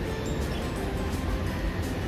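Hiroden Green Mover APEX low-floor tram moving slowly at the platform, its traction motors and inverter holding steady tones at a few pitches over a low rumble.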